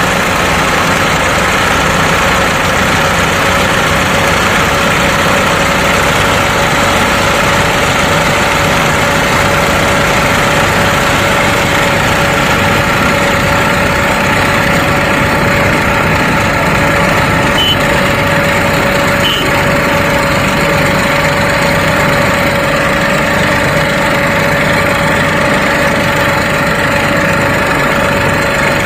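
Tractor-style engine sound running steadily at idle, a constant hum with a steady whining tone that does not change in pitch or level.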